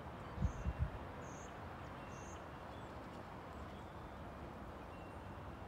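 Steady faint outdoor background hiss, with a few low thumps of wind on the microphone in the first second and three short high chirps about a second apart early on.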